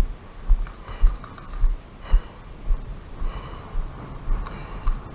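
Heavy, gasping breaths about once a second over low footfall thuds about twice a second, as of a person running.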